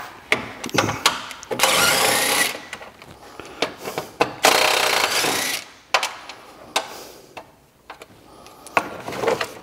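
A cordless ratchet runs in two bursts of about a second each as it backs out two bolts. Sharp clicks and clinks from the tool and the loosened bolts come between and after the bursts.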